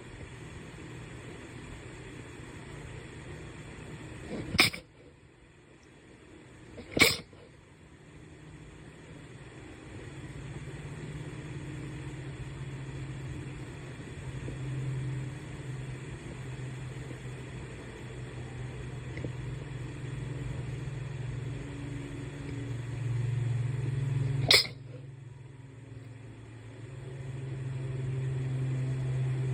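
Three sharp sneezes, two close together about five and seven seconds in and a third near the end, over a low steady hum that grows louder from about ten seconds in.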